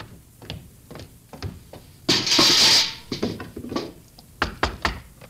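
Radio-drama sound effects of a maid at a hotel room door: light clicks and taps, a short burst of hissing noise about two seconds in, then four sharp knocks on the door near the end that get no answer.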